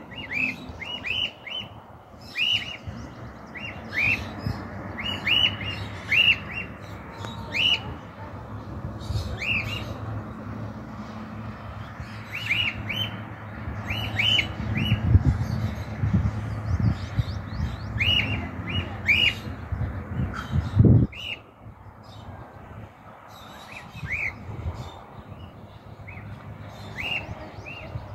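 Cockatiel chirping: short, repeated chirps coming in clusters of several at a time, over a low rumble that swells in the middle and cuts off about 21 seconds in.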